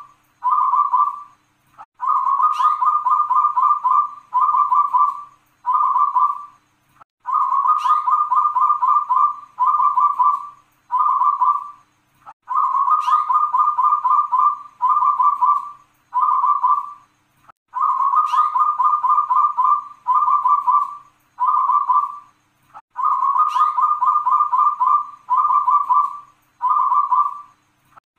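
Caged zebra dove (perkutut) singing its cooing song five times, about once every five seconds. Each phrase is a rapid rolling note followed by three separate 'kung' coos.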